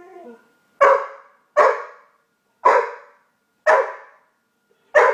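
Pet dog barking five times, about a second apart, each bark sharp and trailing off.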